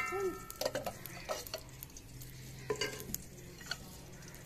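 Steel ladle clinking and scraping against a steel pot and jug as ghee is ladled into the pot: a metal ring fading away at the start, then a few separate short clinks.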